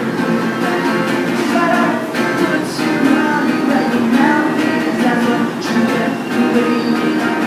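Acoustic guitar strummed steadily in a song, chords ringing on with regular strokes.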